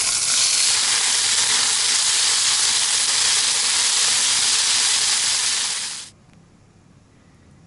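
Boiled pieces of scaly polypore (dryad's saddle) mushroom dropped into hot oil with onions in a frying pan: loud, steady sizzling that cuts off suddenly about six seconds in.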